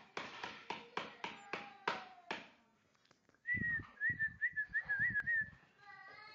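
A run of sharp knocks, about three a second, for the first two and a half seconds. Then a person whistles a short wavering note for about two seconds over soft thumps. Near the end a springer spaniel puppy starts to whine.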